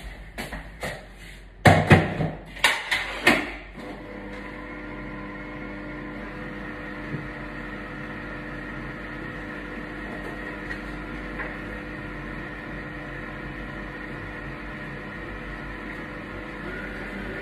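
A few sharp knocks and clunks in the first seconds, then a Kenwood stand mixer's motor starts and runs steadily, mixing tortilla dough with its beater or dough hook.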